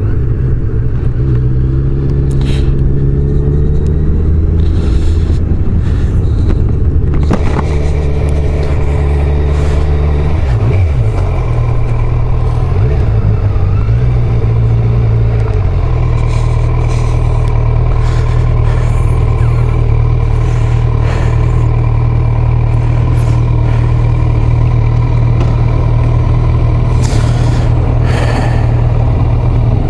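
Kawasaki Z900 inline-four motorcycle engine, ridden slowly, its pitch rising and falling through the first half as the bike slows and turns, then idling steadily from about halfway on.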